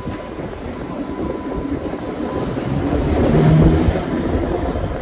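New Orleans RTA streetcar 460 running along the St. Charles line, heard from on board: a steady rumble and clatter of wheels on rail that grows louder about three seconds in, with a short low hum at the loudest point, before easing off again.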